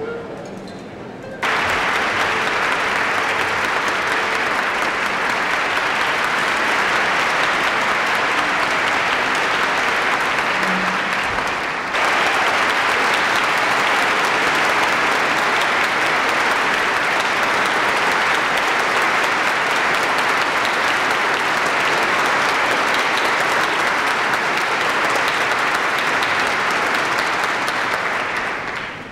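A large concert-hall audience applauding: dense, sustained clapping that breaks out about a second in, as the music stops, and turns suddenly louder partway through.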